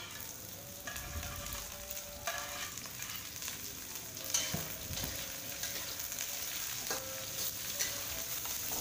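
Sliced chilies and onion sizzling in hot oil in a steel wok, with a metal spatula scraping and clinking against the pan as they are stirred.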